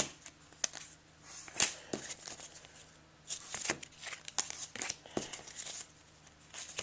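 Crinkling and tearing of a trading-card pack's foil wrapper as it is opened, with the cards rustling as they are handled, in short irregular bursts.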